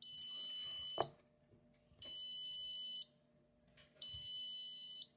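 Small electronic buzzer driven by an Arduino Nano, beeping on its programmed cycle: three high-pitched one-second beeps, each followed by a second of silence.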